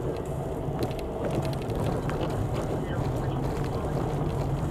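Car driving slowly, heard from inside the cabin: a steady low engine and tyre rumble from rolling over a brick-paved street, with a few light clicks about a second in.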